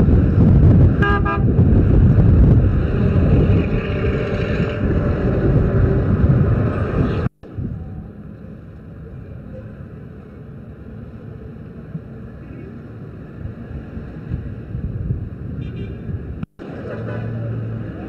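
Road traffic and car engines around a queue of cars, with a short car horn toot about a second in. The sound cuts out for an instant twice at film splices; after the first cut it is quieter street noise.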